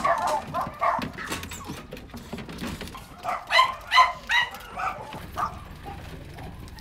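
Dogs barking, with a few barks near the start and a quick run of about five barks a little past the middle.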